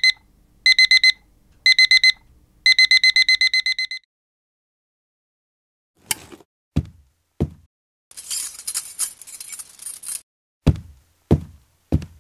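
Electronic alarm clock beeping: four groups of quick, identical high beeps over about four seconds, the last group longest. After a short pause come dull thumps, each dropping in pitch, with a two-second burst of hiss between them.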